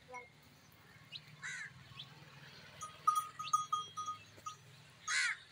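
A farm animal bleating twice, a short call about a second and a half in and another near the end, faint, with a run of short high chirps in between.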